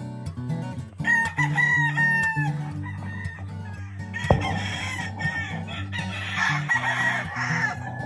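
Roosters crowing over acoustic guitar music. One crow lasting about a second and a half comes about a second in, and more crowing follows in the second half. A single sharp knock falls just past the middle.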